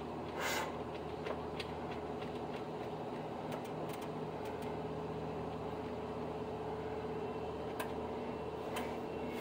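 Steady mechanical hum with a faint held tone, broken by a short hiss about half a second in and a few light clicks.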